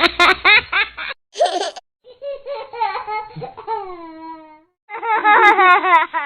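Babies laughing in a string of separate clips with short silent breaks between them. Quick giggling bursts come first, then a long drawn-out laugh that slides down in pitch, then more rapid giggles.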